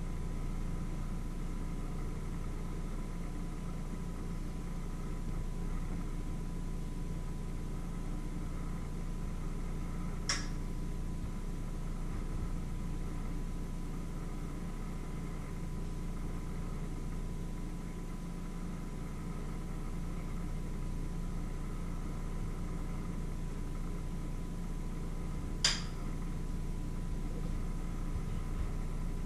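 Steady low mechanical hum with a faint steady whine above it, and two short sharp clicks, one about ten seconds in and another about fifteen seconds later.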